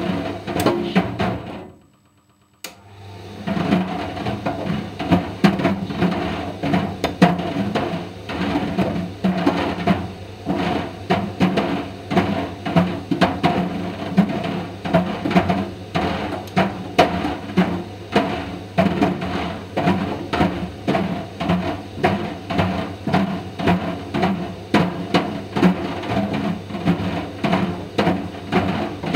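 Indesit IDV 65 tumble dryer running, a steady motor hum under rhythmic knocking from the Mister Steamy dryer ball and load tumbling in the drum. The machine stops for about a second, about two seconds in, then starts again.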